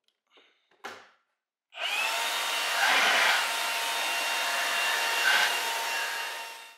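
A small motor-driven machine whirring loudly, spinning up about two seconds in, running steadily and then cutting off suddenly near the end; a couple of faint knocks come before it.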